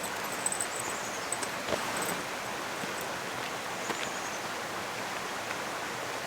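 Steady outdoor rushing noise, even throughout, with a few faint ticks.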